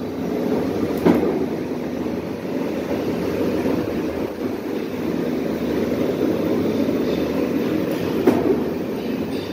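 Workshop machinery running with a steady mechanical rumble. Two short sharp knocks come through, about a second in and near the end.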